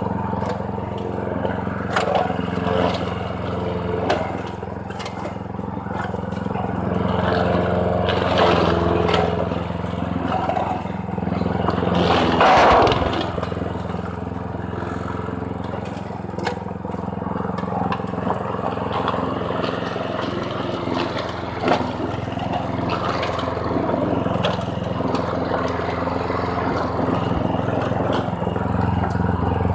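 Lawn mower engine running steadily, with scattered clatter and scraping. About twelve seconds in there is a louder burst as the engine note briefly dips.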